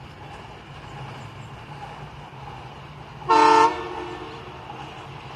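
Sri Lanka Railways Class M2D diesel-electric locomotive sounding one short horn blast about three seconds in, over the steady low hum of its diesel engine running.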